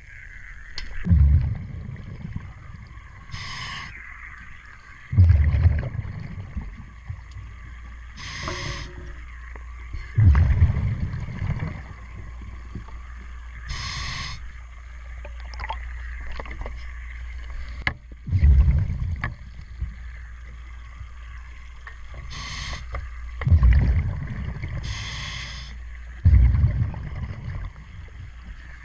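Scuba diver breathing through a regulator underwater: a short hissing inhale, then a burst of exhaled bubbles, repeated every few seconds. A steady low hum runs underneath.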